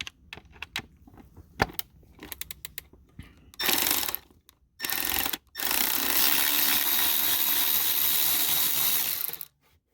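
Cordless power drill/driver with a T20 Torx bit running in short bursts and then one long run of about four seconds, backing out steering-column screws; light clicks of handling parts come before it.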